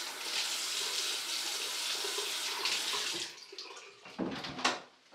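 Bathroom sink tap running steadily, turned off about three seconds in, followed by a few short knocks and thuds.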